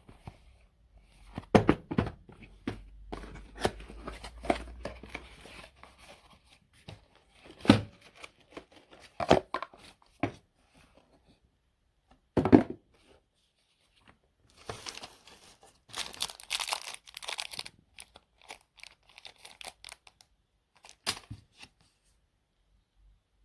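Handling noise: irregular knocks and clicks with rustling and crinkling, including a longer scratchy stretch about fifteen seconds in.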